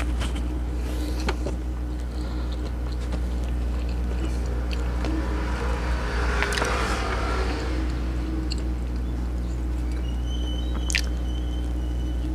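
Close-miked mouth sounds of a person chewing a burger, with rustling as the soft bun is handled around the middle and a bite into the burger near the end. A steady low hum runs underneath.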